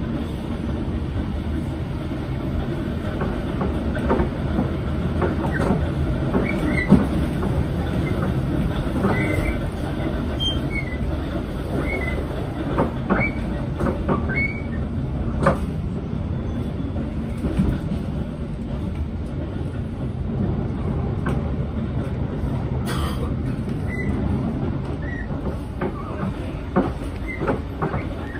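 Electric commuter train heard from inside a carriage while running along the track: a steady wheel-and-rail rumble. Scattered clicks and short high squeaks come through it, most of them in the middle stretch.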